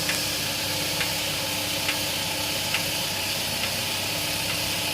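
Car engine running steadily with a hiss, and a faint click about once a second: the loose, worn outer tie rod end knocking as the steering is turned.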